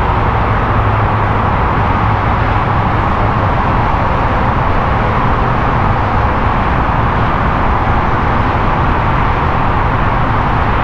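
Steady roar of freeway traffic, an even wash of tyre and engine noise with a low drone under it.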